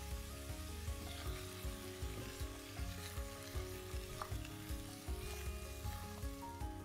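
Sliced daikon, carrot and onion sizzling in sesame oil in a pot while being stirred, with small scrapes of the utensil among the vegetables.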